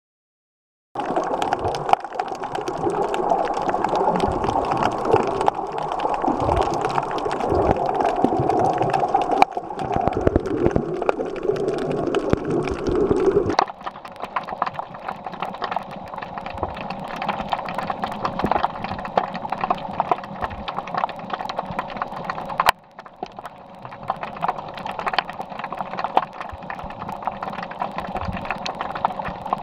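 Underwater sound picked up by a camera: a steady wash of water noise with a dense crackle of short clicks, starting about a second in and dropping quieter about halfway through.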